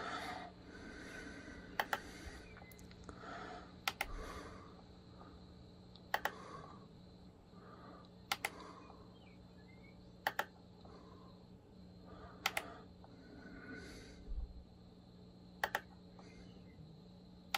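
Faint, sharp clicks of the mouse buttons on a keyboard with a built-in mouse, single or doubled, about every two seconds, while clicking through right-click menus. A low steady hum sits underneath.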